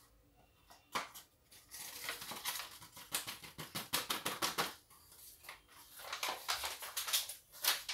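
Paper flour bag crinkling and rustling as it is handled and flour is tipped out of it into a wire-mesh sieve, a rapid run of crackles with a short lull about five seconds in.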